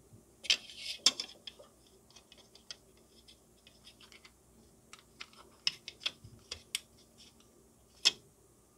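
Hard plastic parts of an Aoshima Lamborghini Huracán Performante model kit clicking and tapping as the dashboard is pressed onto the interior tub. Two loud clicks about a second in, scattered light ticks, a quick run of clicks around five to seven seconds, and one sharp click near the end.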